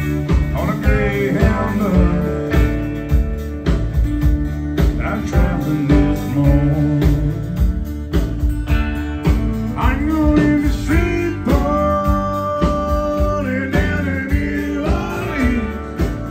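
Live country band playing: fiddle over strummed acoustic guitar, electric guitar, bass and drums, with a long held fiddle note about halfway through.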